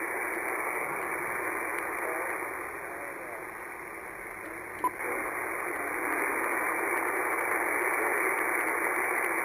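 Shortwave band noise from an Icom IC-746Pro transceiver receiving 20 m single sideband: steady hiss squeezed into the narrow sideband audio passband, with a faint, barely readable voice buried in it. A single click about halfway through; after it the hiss grows louder as the receiver's preamp is switched from its first to its second setting.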